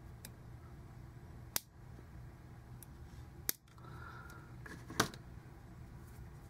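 Small fly-tying scissors snipping monofilament: three sharp snips, about a second and a half apart, over a faint steady low hum.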